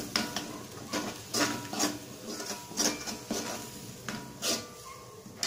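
Onion-and-spice masala paste being stirred and scraped around a metal kadai in quick, irregular strokes, with a light sizzle that fades away. The masala is frying down after a splash of water was added, to cook off the raw smell of the spices.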